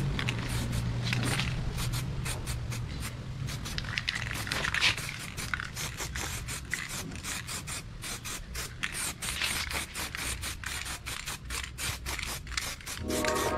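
Aerosol spray-paint can hissing in many short bursts as paint is dusted onto a steel motorcycle frame, the bursts coming quicker in the second half.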